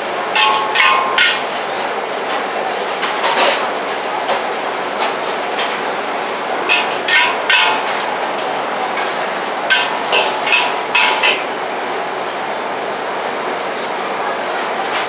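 Metal wok spatula clanking against a wok as bee hoon is stir-fried, in quick clusters of sharp strikes with a short metallic ring, over a steady hiss.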